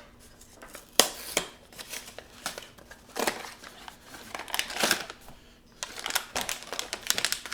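A small cardboard blind box and its wrapping being opened by hand: scattered taps and clicks, then dense crinkling of packaging from about six seconds in.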